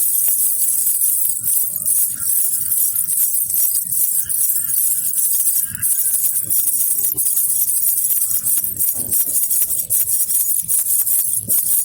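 Baby rattle with small jingle bells (jhunjhuna) shaken continuously: an unbroken, high jingling with no pause.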